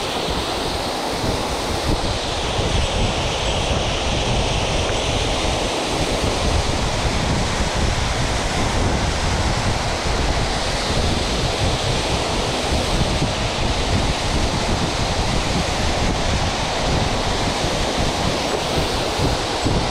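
Loud, steady rush of a mountain headwater stream flowing over rocks close to the microphone.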